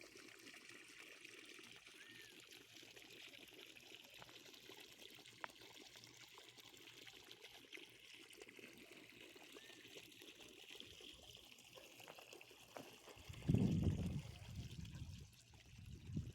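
Water pouring and trickling steadily onto the ground as a tree is watered, faint throughout. About thirteen seconds in and again near the end there are two louder low rumbles.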